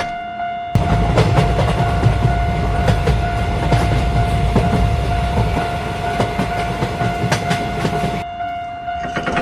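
A train passing, a heavy rumble with rhythmic clickety-clack of the wheels that starts under a second in and dies away near the end, over a steady high tone that sounds throughout.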